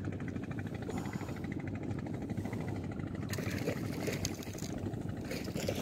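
A small engine running steadily, a low even sound throughout.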